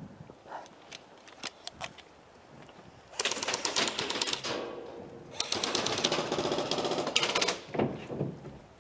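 Airsoft rifle firing two long full-auto bursts of rapid clicking shots, the first about three seconds in and the second, longer one about five and a half seconds in, with a few light knocks of handling before them.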